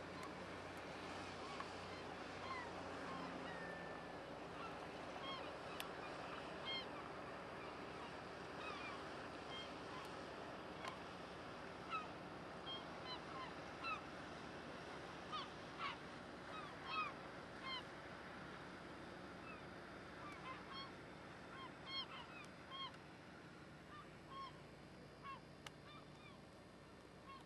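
A flock of gulls calling, many short overlapping cries and mewing calls that come thickest around the middle, over a steady low hum.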